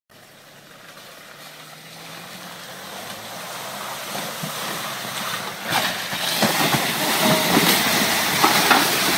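Land Rover Freelander driving through deep mud, getting steadily louder as it approaches, its engine running under the splashing; from about six seconds in the tyres churn and throw mud in a busy splattering wash as it passes close.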